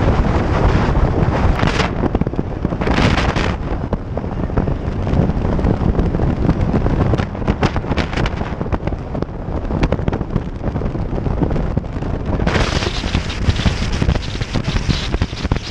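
Heavy wind buffeting on the microphone of a vehicle-mounted camera at highway speed, a steady low rumble with engine and road noise underneath. The hiss brightens briefly twice early on and again from about three-quarters of the way through.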